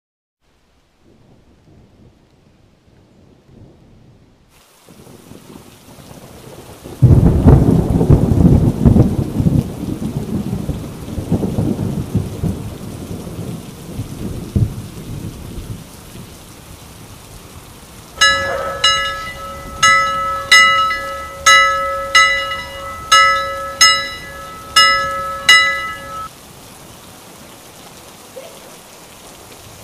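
Steady rain with a loud thunderclap about seven seconds in, its rumble dying away over several seconds. Later, over the rain, a school bell is struck about ten times, a little more than once a second, each stroke ringing briefly.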